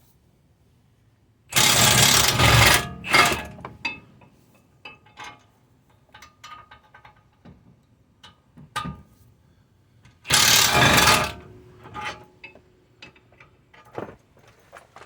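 Impact wrench on a chain of extensions hammering in two bursts of about a second or two each, breaking loose the two rear brake caliper bracket bolts. Light clicks and clinks of tools and metal between and after.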